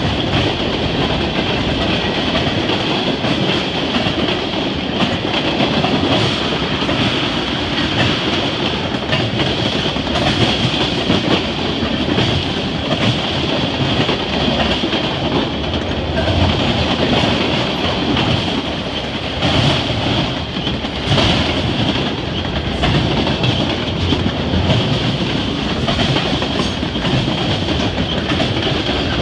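Freight cars of a long mixed manifest train rolling past close by: steady rumble of steel wheels on the rails, with rhythmic clacking and a few louder clanks.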